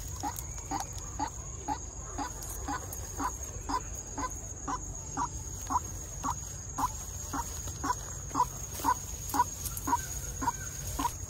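White-breasted waterhen calling: one short note repeated evenly about twice a second, growing louder toward the end.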